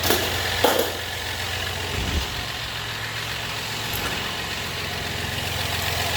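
A 4.3-litre engine idling steadily, with a couple of short clicks in the first second and a low thump about two seconds in.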